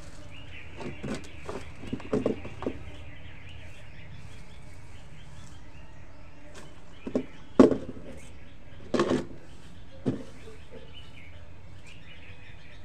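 A few short scrapes and knocks of hands clearing dirt and weeds from a concrete roof floor, loudest about halfway through and again a little later, over steady outdoor background noise.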